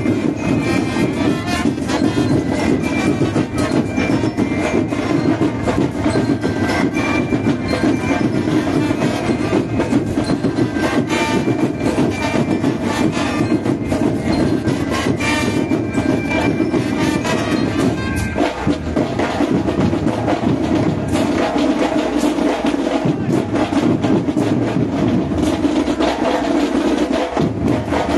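Nicaraguan banda independiente (marching band) playing: dense, continuous drumming with held tones from melody instruments over it.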